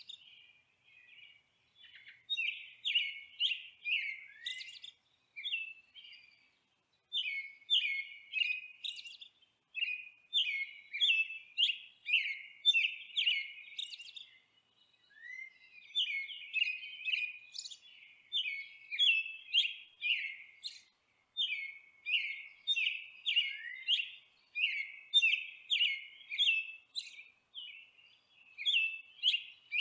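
Songbirds chirping: fast runs of short, high chirps in phrases of a second or two, broken by brief pauses.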